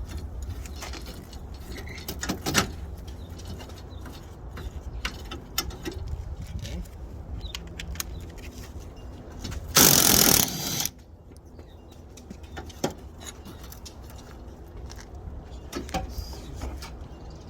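Scattered small clicks and clinks of tools and plastic trim clips being worked on a car's front end, over a steady low hum. About ten seconds in, a loud hissing burst lasts about a second and stops suddenly.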